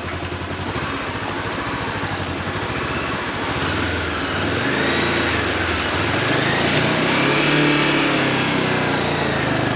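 Honda CB400X motorcycle's parallel-twin engine running under way, its note drifting up and down gently and getting louder through the second half.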